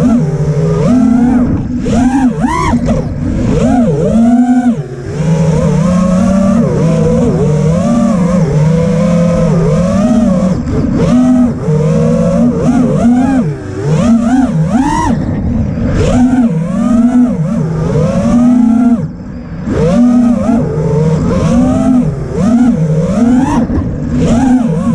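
Five-inch FPV racing quadcopter's Emax RS2206 1900 KV brushless motors spinning Ethix S3 props, heard from the onboard GoPro: a buzzing whine that rises and falls sharply and constantly with the throttle. It dips briefly about 5 seconds in and again about 19 seconds in.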